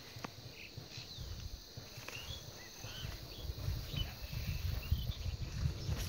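Small birds calling in short, scattered chirps over a steady high insect hum. A low rumble on the microphone grows louder in the second half.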